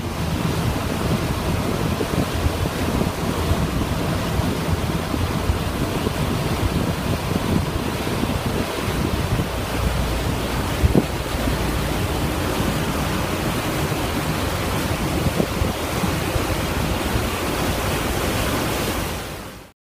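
Steady rush of wind on the microphone and water aboard a boat, with an odd faint knock. It fades out just before the end.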